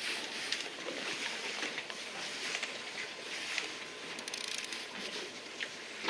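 Steady hiss of wind and sea water around a boat, with a few faint, irregular ticks from a small conventional jigging reel being cranked against a hooked fish.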